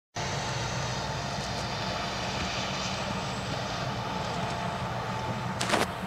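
Steady outdoor background noise, a low rumble with hiss, with one brief sharp noise just before the end.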